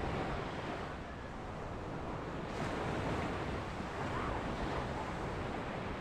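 Small ocean waves breaking at the shoreline and washing up the sand, a steady hiss of surf; a fresh wave breaks and swells the wash about two and a half seconds in.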